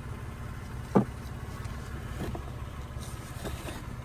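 Steady low hum of a car engine idling, with one sharp knock about a second in and a few fainter clicks after it.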